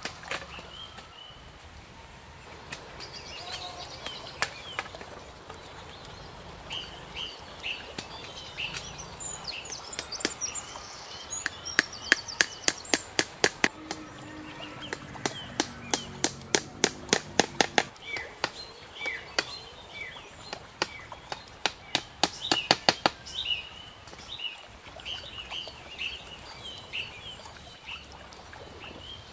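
Runs of quick, sharp knocks of a tool striking bamboo, several a second, in three bursts through the middle of the stretch, with small birds chirping throughout.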